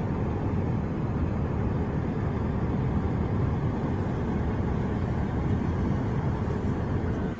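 Steady low rumble inside a car's cabin from the running car.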